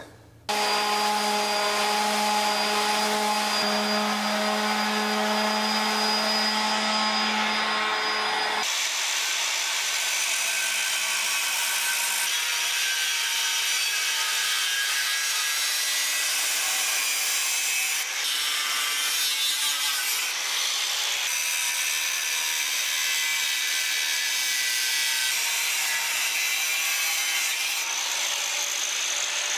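Angle grinder with an abrasive cut-off wheel running steadily as it cuts through square steel tubing. For the first eight or so seconds a different steady power-tool whine with a clear pitch is heard, and it changes abruptly into the grinding.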